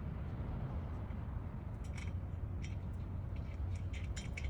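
A few faint, sharp metal clicks from a bolt and tools being handled during brake caliper reassembly, over a steady low rumble.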